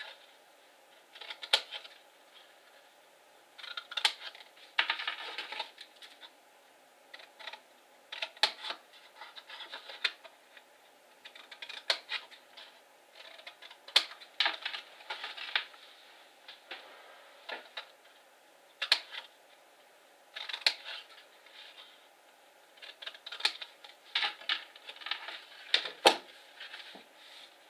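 Small scissors snipping wedges out of cardstock corners: a series of sharp snips with rustling of the card between them, and a louder knock about 26 seconds in as a pair of scissors is set down on the mat.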